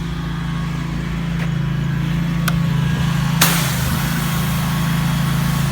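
Pressure washer's engine running steadily; about three and a half seconds in, a sudden, steady hiss of spraying water starts and keeps on.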